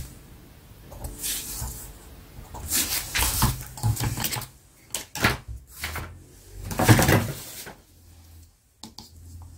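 Rustling and light knocks of paper and drawing tools being handled on a desk, in irregular bursts, the loudest about three and seven seconds in.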